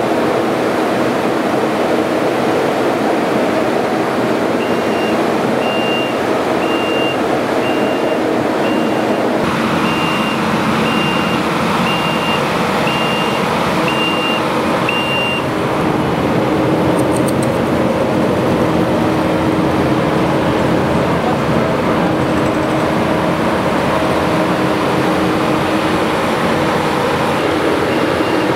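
Steady machinery noise with a vehicle's reversing alarm beeping about once a second for some ten seconds, starting again near the end.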